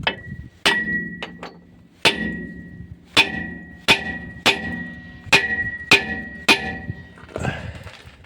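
Hammer blows knocking a KAMAZ truck's brake drum off its hub: about ten sharp metal strikes, spaced half a second to a second apart, each leaving the drum ringing with a steady high tone.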